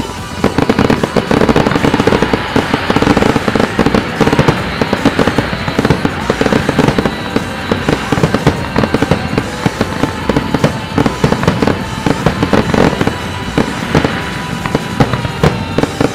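Fireworks display in a rapid barrage of bangs and crackles that begins about half a second in and keeps going, with music playing underneath.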